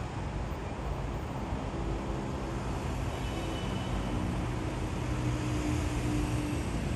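Steady distant city traffic noise. From about two seconds in, an engine's drone comes up over it and grows a little louder toward the end as it passes.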